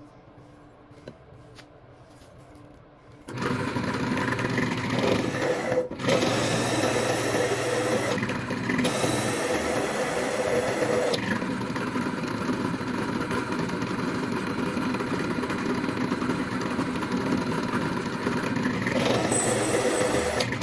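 A motor running steadily, starting abruptly about three seconds in and changing its note a few times.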